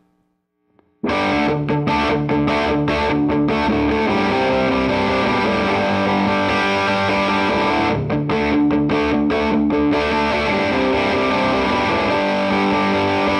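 Electric guitar played through a Mesa/Boogie TransAtlantic tube amp's channel 1 in top boost mode, master pulled for the push-pull circuit and volume dimed, giving a driven, distorted tone. Playing starts about a second in: choppy chord stabs at first and again about two-thirds through, otherwise ringing chords.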